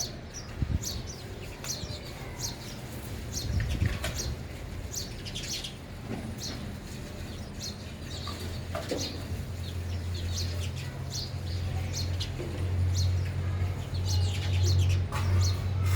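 House sparrows chirping in short, repeated chirps, a few every second or two. A steady low hum grows in about halfway through and is loudest near the end.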